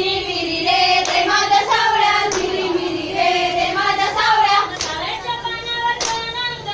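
Women's voices singing a Konkani jakhadi folk song, with sharp hand claps keeping the beat about once a second.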